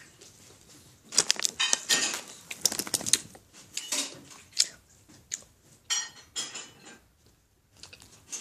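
Crinkling and rustling of candy packaging handled close up, in irregular sharp crackles. They are densest about a second in, then thin out to scattered crackles before going quiet near the end.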